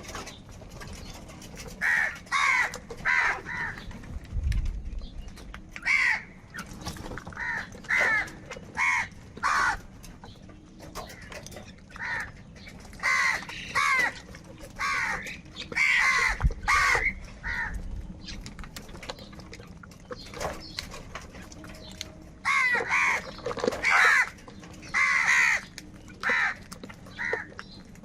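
Crows cawing in runs of short calls, a few overlapping, broken by quiet gaps of a couple of seconds.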